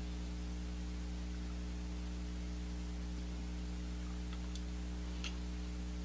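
Steady low electrical hum, with a few faint light clicks near the end as plastic paint bottles are set down on a plastic tub.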